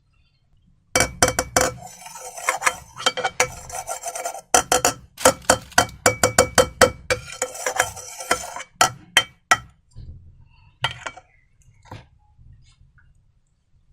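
Slime being stirred and worked in a container: rapid sticky clicks and crackles with a utensil clinking against the container. It comes in two dense spells, starting about a second in and again after a short break around four and a half seconds, then thins out to a few scattered clicks near the end.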